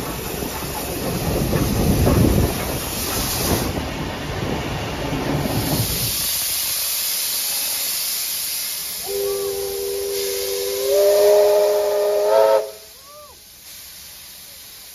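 Victorian Railways R-class steam locomotive R766: for about the first six seconds a loud rumble of it running past, then a steady hiss of steam venting at its cylinders, then its chime steam whistle sounds for about three and a half seconds, stepping up in pitch partway, and cuts off.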